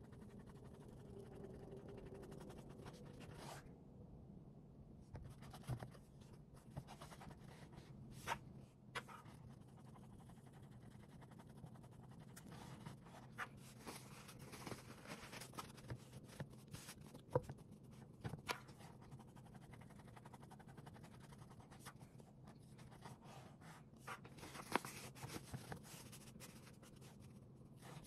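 Faint handling noises: fabric hats rustling and scraping as they are put on, turned and adjusted on a mannequin head form, with scattered light taps and clicks over a low steady hum.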